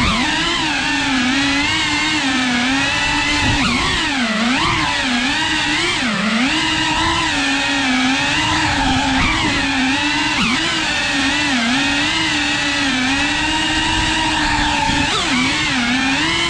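FPV quadcopter's electric motors and propellers buzzing loudly, the pitch wavering up and down with the throttle and dipping sharply a few times, about four and six seconds in and near the end.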